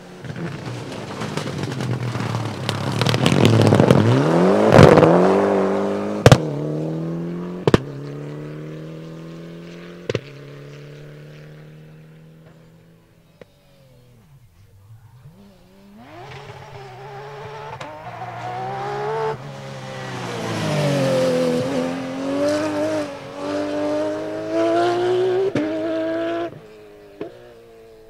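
Two rally cars passing at speed, one after the other. The first engine rises as it approaches and drops in pitch as it goes by, with three sharp cracks as it fades away. After a short lull the second car comes in hard, its engine revving up and down through gear changes, and then cuts off suddenly.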